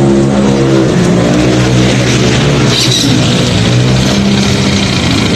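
A 220 cc GY6-type single-cylinder four-stroke ATV engine running steadily, its pitch shifting a little now and then.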